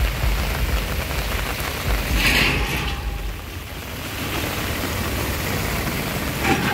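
Steady hiss of heavy rain and floodwater running down a flooded street, with wind rumbling on the microphone. There is a brief louder hiss about two seconds in.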